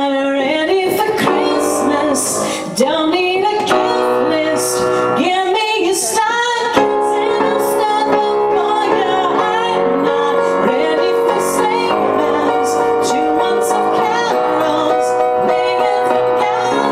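A woman singing live with her own grand piano accompaniment, holding long notes from about seven seconds in.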